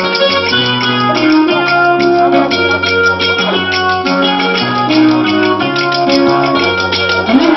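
Ghanaian gospel highlife band music played live: bright keyboard notes over a bass line that steps between held notes, with a beaded gourd shaker rattling along.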